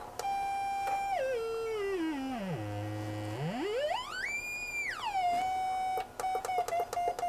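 Moog Werkstatt-01 analog synthesizer's oscillator putting out a square-wave tone, its pitch swept by the frequency knob. The tone glides down in steps to a low note, rises smoothly to a high note, then falls back to where it started. Near the end it holds steady, broken by a run of short clicks.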